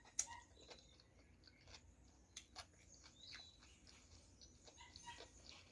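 Faint chewing: scattered soft mouth clicks as food is eaten, with a few short high chirps in the background.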